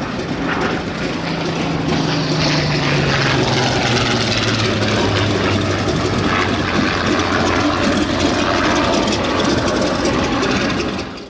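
Republic P-47 Thunderbolt's Pratt & Whitney R-2800 radial engine running as the fighter taxis close past, its low propeller drone growing louder about two seconds in and dropping in pitch as it goes by.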